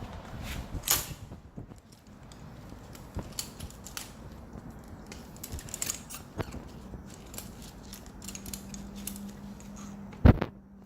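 Scattered clicks and light knocks from a Hudora Big Wheel kick scooter's folding and handlebar-height mechanism being worked by hand, with one loud knock about ten seconds in.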